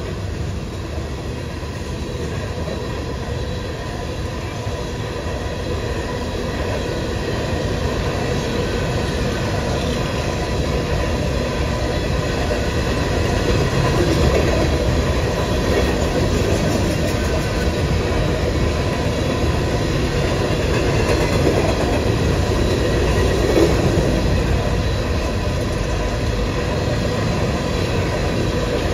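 Union Pacific freight train rolling past, a steady rumble of railcars on the rails with a faint whine from the wheels, growing somewhat louder after the first several seconds.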